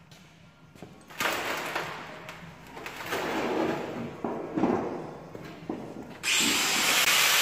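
Knocks and rubbing as the steel bonnet panel and its paper template are handled and set in place. About six seconds in, a power tool starts on the sheet steel of the bonnet corner with a sudden loud, steady noise.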